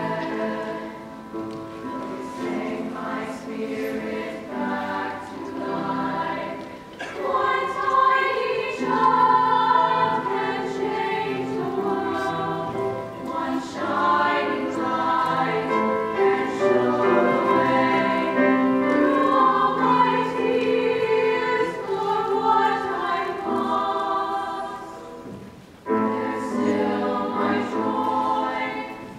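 Women's choir singing in parts with piano accompaniment. The singing grows louder about seven seconds in, falls away briefly near the end, then comes back in at full strength.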